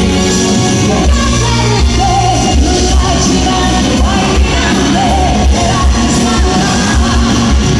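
Live rock band performance with a female lead singer holding long notes with vibrato over loud drums, bass and guitar, recorded from the audience in a concert hall.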